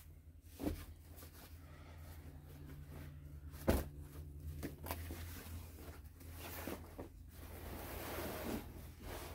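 A few short, sharp knocks, the loudest nearly four seconds in, over a steady low hum.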